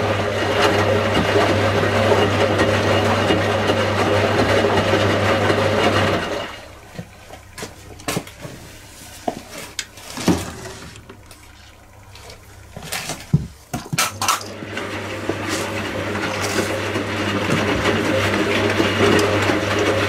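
1985 Indesit 822 front-loading washing machine on its wash tumble. The drum motor hums steadily for about six seconds, then stops for about eight seconds while the wet laundry sloshes and knocks in the still drum. The motor then starts again and builds back to a steady hum.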